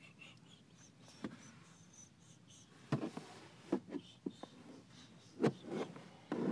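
Scattered soft knocks and rustling from a person shifting about inside a car. The loudest knocks come about three and five and a half seconds in, with a denser rustle at the very end.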